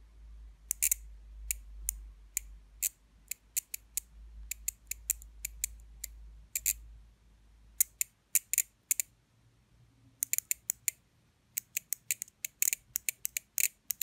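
Opened-up 12 V washing-machine PCB relay (Schrack T7) clicking repeatedly as its coil is switched on and off, the armature pulling the contact across each time: the relay is working. The sharp clicks come in irregular runs, several a second, with short pauses.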